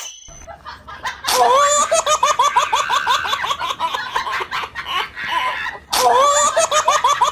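High-pitched laughter, a quick run of ha-ha pulses starting about a second in and starting over at about six seconds.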